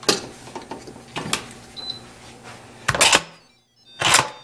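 Instant Pot pressure cooker lid being handled and twisted shut: a few light clicks and knocks, then two short loud scrapes about a second apart.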